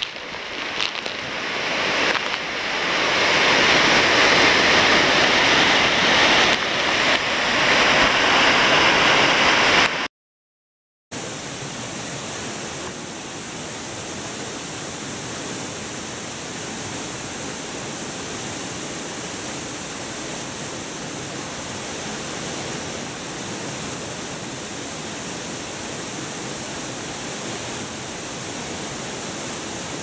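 A waterfall swollen to a flood by record-breaking heavy rain, a loud rush of crashing water and heavy spray that builds over the first few seconds. About ten seconds in it cuts out for a moment, then a steadier, quieter rush of falling water carries on.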